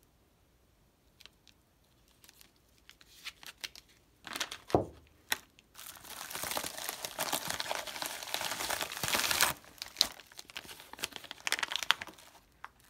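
Clear plastic zip-lock bag crinkling as the silver kilo bar inside it is handled and picked up, with one knock about five seconds in; the crinkling is loudest in the middle and goes on in smaller bursts.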